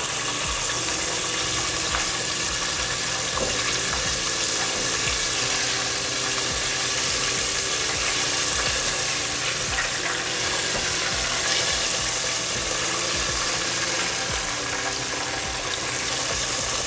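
Beer-battered chicken pieces deep-frying in a pot of hot oil: a steady, dense sizzle.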